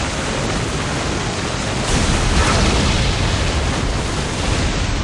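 Animated sound effect of the Wind Scar sword attack blasting through crystal and rock: a loud, sustained rushing blast of noise, swelling slightly about two seconds in.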